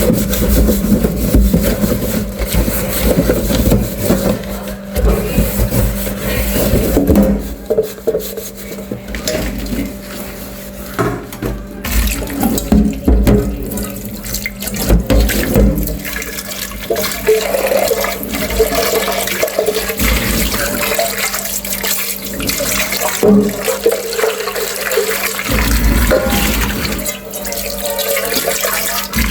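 Water running from a tap into a sink while dishes are washed, with frequent clinks and knocks of dishes. The water runs heavier at the start and again near the end.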